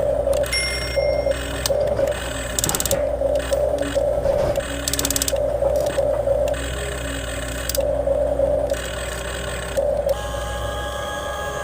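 Electric gear motors of a Huina 1550 radio-controlled excavator whining in short, irregular on-off bursts as it digs, with scattered clicks.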